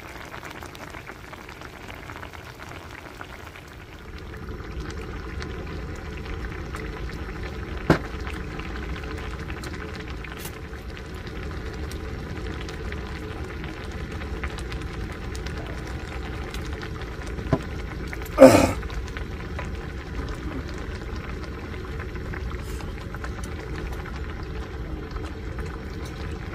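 Thick red stir-fry sauce bubbling and simmering in a pan on a portable gas burner: a steady noise that grows a little louder about four seconds in. A sharp click comes about eight seconds in, and a louder short knock a little past halfway.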